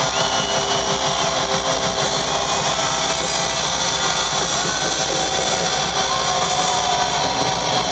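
Loud, steady roar of an arena rock-concert crowd, recorded distorted, with a few thin high whistles gliding over it.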